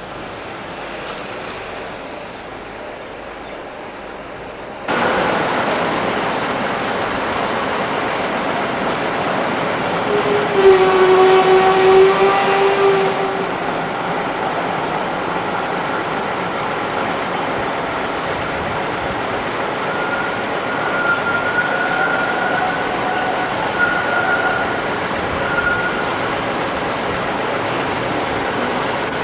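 Street sound of an A class tram and road traffic: a steady rushing noise that grows suddenly louder about five seconds in. A steady pitched tone sounds for two to three seconds about ten seconds in, and a fainter, wavering high tone comes and goes later.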